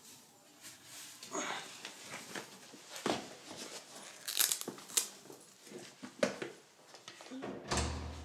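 Clothing and shoes rustling as jackets and shoes are put on and laces pulled tight, with scattered small knocks and scuffs. A dull low thump comes near the end.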